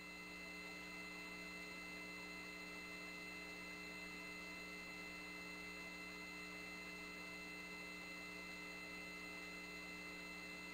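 Faint, steady electrical hum with several thin steady tones on an open voice-loop audio feed between calls.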